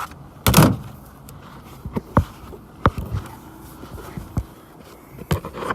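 Handling noises: one loud thump about half a second in, then a scattering of short, sharp clicks and knocks.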